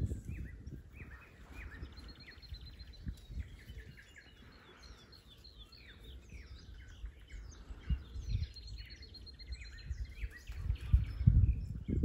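Several small birds singing and chirping in the reeds, with a fast, high trill heard twice. Under them runs an uneven low rumble with thumps, loudest near the end.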